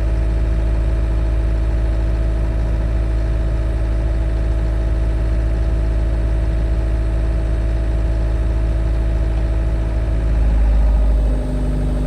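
Tractor engine running steadily. Near the end it gets louder for about a second, then settles to a different, lower note.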